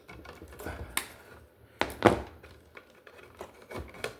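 Hand tools and electrical wires being worked on in the box: a series of irregular clicks, snips and knocks, the loudest about two seconds in.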